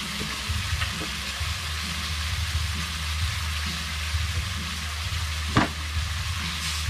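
Food sizzling as it is sautéed and stirred in a hot pan, a steady hiss, with one sharp knock toward the end.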